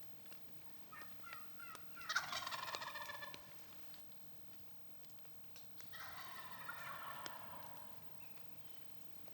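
Wild turkey gobbling twice: a rapid rattling gobble a couple of seconds in, and a second gobble, a little quieter, about four seconds later, with a few short notes just before the first.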